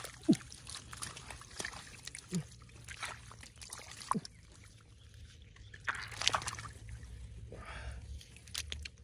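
Shallow water sloshing and splashing, off and on, as someone works by hand in a flooded field. A few short sounds drop quickly in pitch, with the busiest splashing about six seconds in.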